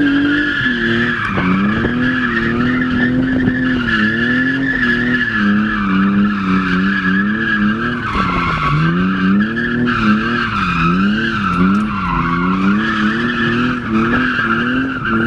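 BMW E36 drifting, heard from inside the cabin: the engine revs up and down again and again as the throttle is worked, while the rear tyres squeal steadily through the slide.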